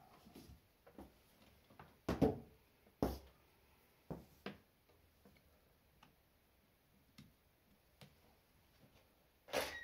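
A few scattered clicks and knocks of a charging cable being handled on a tiled floor and plugged into a laptop's port. The loudest come about two and three seconds in, with another near the end.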